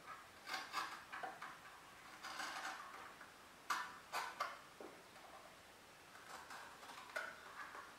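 Razor blade cutting and scraping into a cardboard milk carton: faint, irregular short clicks and scratchy cuts, with a sharper click about four seconds in.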